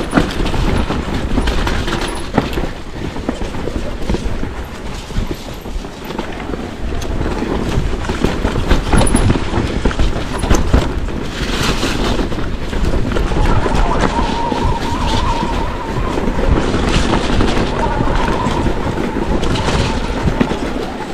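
Mountain bike descending a rough, rooty trail: a continuous rattle and clatter of tyres, chain and frame over roots, with many sharp knocks over a steady rumble. A brief high whine comes a little past halfway.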